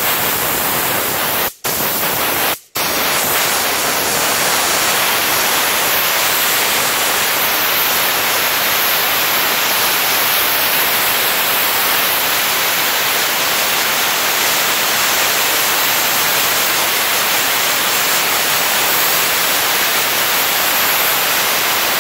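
Optima Steamer steam gun blasting a jet of steam against a brick wall: a loud, steady hiss. It cuts out briefly twice in the first few seconds, then runs unbroken.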